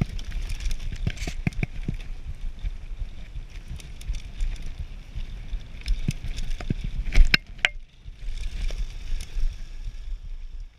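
Radon Slide Carbon enduro mountain bike rolling fast down a dirt trail: wind rumble on the camera's microphone and tyre noise, with repeated rattles and knocks from the chain and bike over bumps. The loudest knock comes a little after seven seconds, and the noise briefly drops about a second later.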